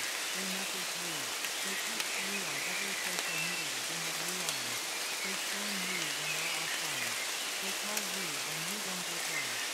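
Steady rain falling, with a low voice speaking continuously underneath it.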